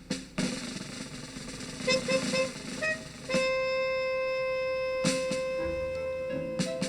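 Music: a few short notes, then one long held note from about three seconds in.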